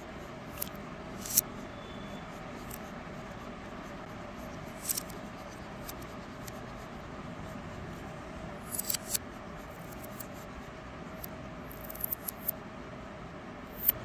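LEGO Technic plastic parts clicking as they are handled and pressed together: scattered sharp clicks, some in quick clusters, over a steady background hiss.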